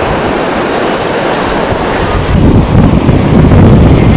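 Rough surf breaking and washing over rocks, with wind buffeting the microphone; the sound grows louder and deeper about halfway through.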